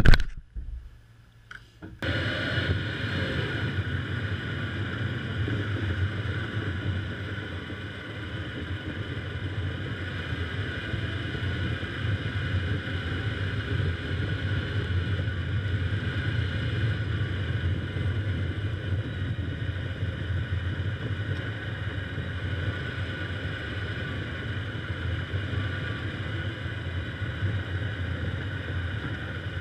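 Car driving on an ice- and snow-covered road: steady engine and tyre noise picked up by a camera mounted low on the outside of the car, starting suddenly about two seconds in after brief camera handling noise.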